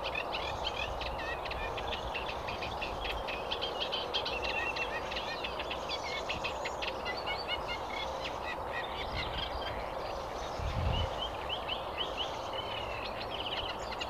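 Eurasian reed warbler singing: a long, unbroken run of fast, chattering, repeated notes, heard over a steady background hiss.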